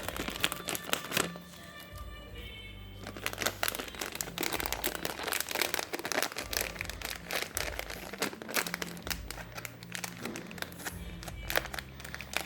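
Plastic packaging crinkling and crackling in handling as squishy toys are unwrapped, over background music.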